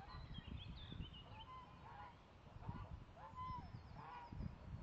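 Domestic fowl calling: a run of about seven short calls, each rising and falling in pitch, with thin higher chirps in among them.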